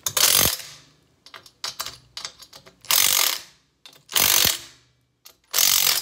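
Compact cordless impact driver hammering in four short bursts of about half a second each as it drives small screws into a ceiling fan's motor housing, with light clicks between bursts.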